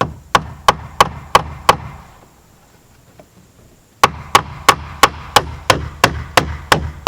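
A hammer drives stainless steel ring-shank siding nails into cedar trim, striking about three times a second. About five blows land, there is a pause of about two seconds, then a run of about ten more.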